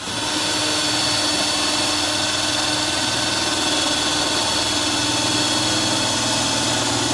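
Cordless drill running at steady full speed against sheet metal, a constant motor whine over a harsh hiss, starting abruptly.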